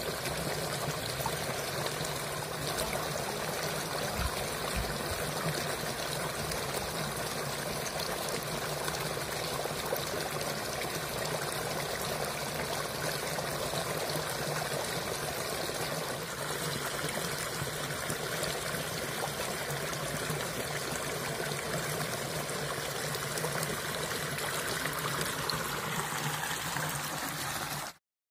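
Stream water pouring steadily over and through the bamboo-slat screen of a panai pari fish trap, splashing onto the slats. It cuts off suddenly near the end.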